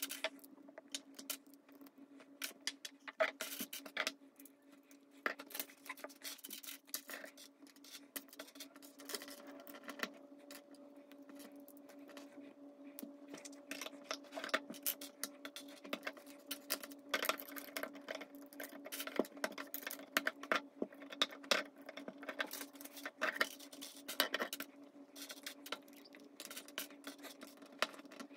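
Plastic Lego bricks clicking and rattling as loose pieces are picked from a pile on the table and pressed onto the model: many small irregular clicks, over a steady low hum.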